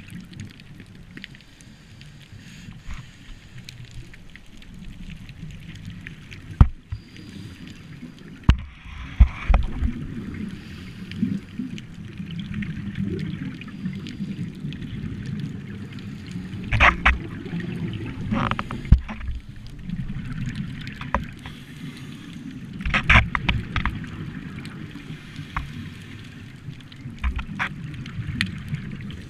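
Scuba diver's exhaled regulator bubbles rumbling and gurgling in bursts every several seconds, heard underwater through a camera housing, with a few sharp knocks.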